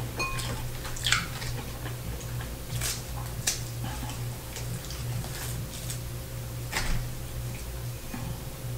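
Hands pulling apart a breaded fried pork chop: the crisp crust gives a scattered handful of soft clicks and crackles over a low steady hum.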